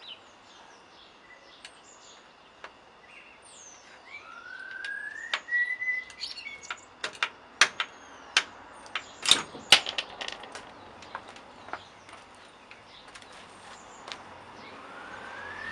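A run of sharp clicks and knocks, loudest about halfway through, as a metal pivot bush is worked out of a mountain bike's rear swing arm. Birds chirp in the background with a few rising whistled calls.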